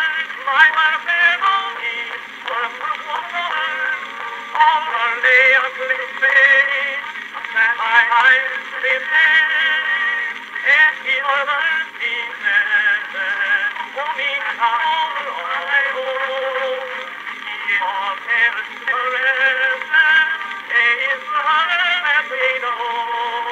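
A 1915 Edison cylinder phonograph playing a Blue Amberol cylinder through its small black trumpet horn: a man singing with accompaniment. The sound is thin and boxy, with no bass below about 200 Hz and little above 4 kHz.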